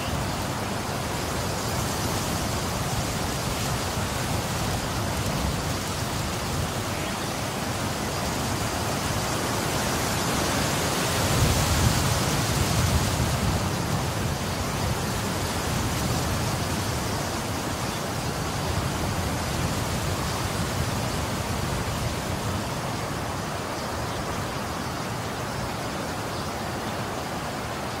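Strong wind: a steady rushing noise that swells into a louder gust with low rumbling about eleven seconds in, then eases off.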